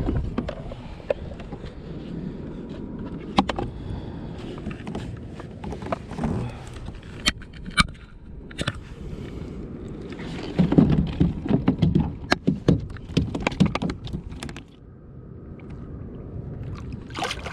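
Knocks, clicks and scrapes of a flounder being handled on a plastic measuring board in a kayak, with a dense run of knocks for a few seconds past the middle. It turns quieter near the end as the fish is lowered back into the water.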